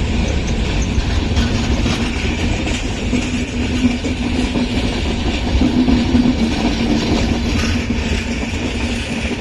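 Passenger train coaches rolling past: a steady rumble and rattle of steel wheels on rails, with a faint low hum that comes and goes.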